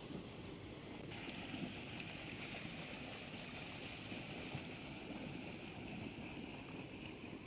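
Wind buffeting the microphone outdoors with a steady rumble, joined about a second in by a steady high hiss such as an insect chorus.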